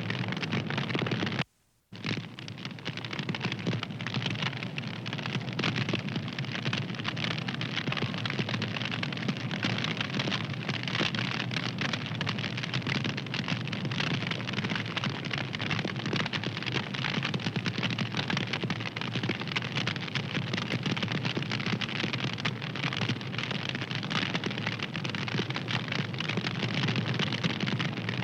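Wood fire crackling, with dense small pops and snaps over a steady low rumble. It cuts out for a moment about a second and a half in, then comes back.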